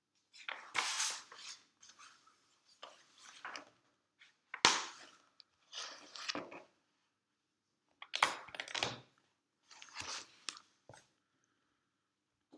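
Paper rustling and crinkling as notebook sheets are handled and turned, in about six separate bursts; the sharpest comes a little over a third of the way in.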